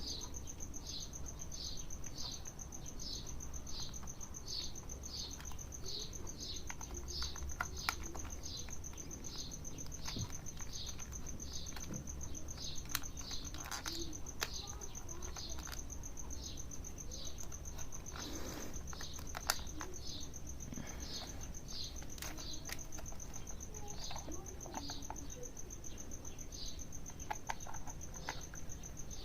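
Outdoor ambience of regular high chirps, about three every two seconds, over a steady high-pitched tone and a low rumble, with a few faint clicks scattered through.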